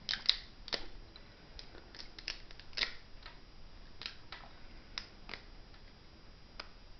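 Thin ABS support material in a 3D-printed part snapping and crackling as it is broken out by hand: a string of small, sharp, irregularly spaced clicks, about a dozen of them.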